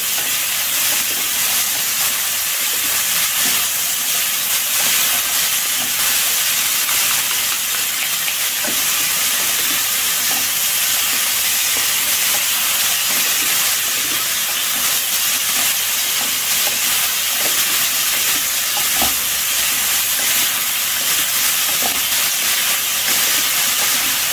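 Shredded vegetables and chicken stir-frying in a wok over a high flame: a steady sizzling hiss, with light scraping as two wooden spatulas toss the mixture.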